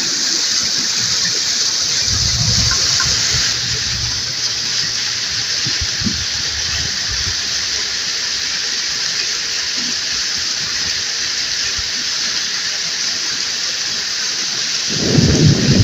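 Shallow stream rushing over rocks, a steady hiss of running water. Low rumbles of wind on the microphone come and go, growing louder near the end.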